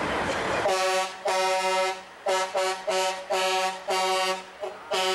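Truck air horn blown in a run of about eight blasts, two longer ones followed by quicker short toots. A moment of engine and road noise from a passing truck comes before them.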